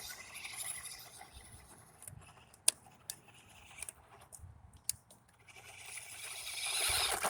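Battery-powered RC car driving over rocky ground: its whine and tyre noise fade as it drives away, then grow louder again as it comes back toward the end. A few sharp ticks are heard in the quieter middle.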